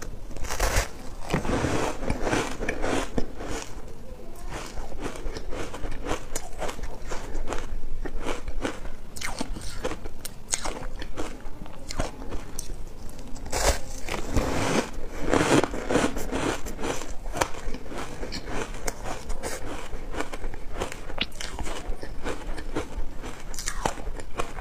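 Frozen shaved ice being bitten, chewed and crumbled: a dense run of sharp, crackling crunches, heaviest about a second in and again around the middle.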